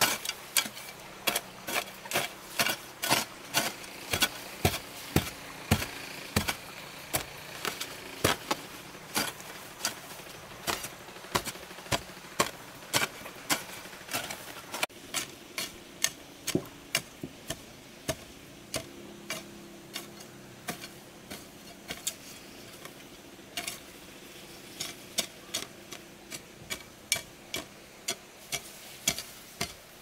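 A long-handled hoe chopping into stony soil, with sharp knocks about twice a second. About halfway in the knocks become slower and scattered, as stones are set into mortar on top of a stone wall.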